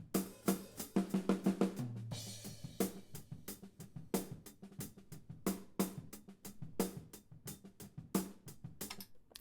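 Recorded drum kit heard through the soloed hi-hat microphone: a quick run of crisp hi-hat strokes in front, with snare and kick drum bleeding in quieter from the rest of the kit.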